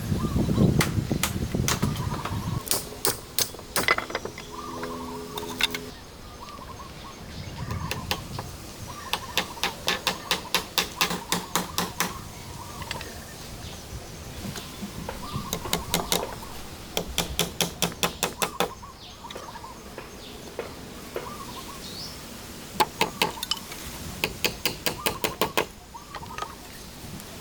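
Runs of quick, sharp taps, about five a second, each run lasting two or three seconds and coming again several times.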